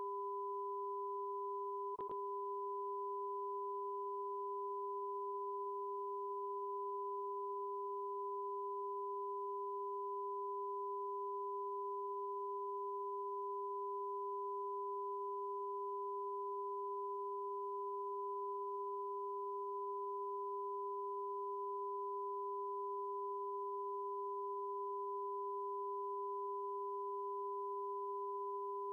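Steady broadcast test tone from the RAI Uno test card: two pure tones sound together without a break, a strong lower one and a higher one. There is a single faint click about two seconds in.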